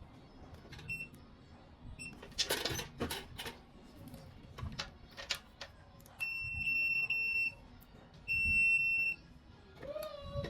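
An electronic beeper sounds two long, steady, high-pitched beeps in the second half, after two very short blips of the same tone, with light clicks and knocks of handling between them.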